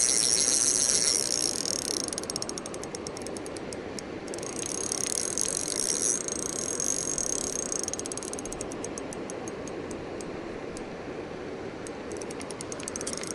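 Spinning reel's drag buzzing and clicking as a large hooked pike pulls line off against it. The clicks run fast enough to merge into a buzz at the start and again about five seconds in, and come slower and spaced between and after those runs.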